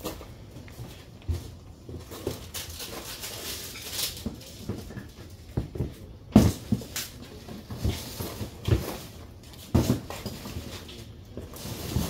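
Irregular short knocks and thumps, a handful of them, the loudest about six seconds in.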